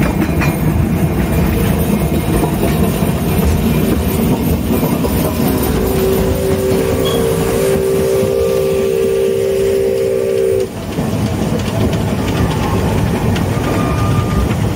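Narrow-gauge steam train running, a steady loud rumble on the rails. A steam whistle is blown once for about five seconds in the middle and cuts off sharply.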